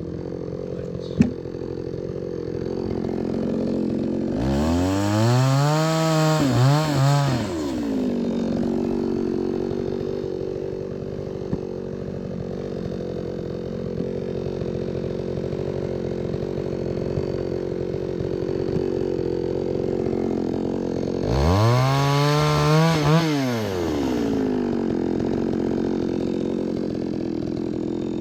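Chainsaw engine idling steadily, revved up twice for about three seconds each, its pitch climbing, wavering at the top and falling back to idle. A single sharp click comes about a second in.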